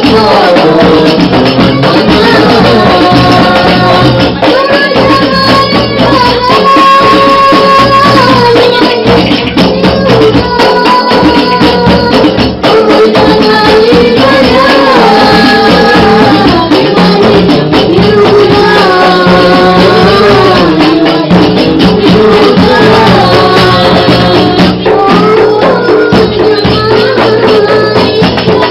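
Sholawat, Islamic devotional praise singing: a voice carries an ornamented melody with long held, wavering notes over a steady beat of hand-struck rebana frame drums.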